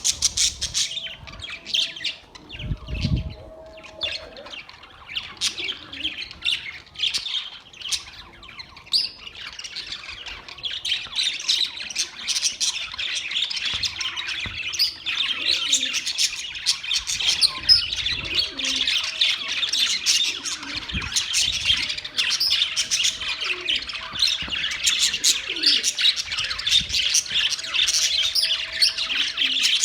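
A group of budgerigars chattering, a constant run of quick chirps and warbles that grows denser and louder after about ten seconds.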